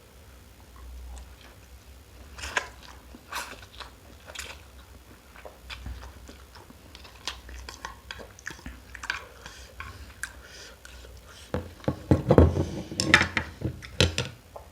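A person chewing and biting food close to the microphone, with a louder, denser run of eating sounds near the end.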